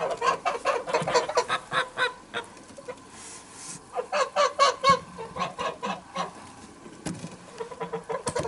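A flock of domestic white geese honking in quick runs of short calls, one run through the first two seconds and another about four seconds in, with scattered honks near the end.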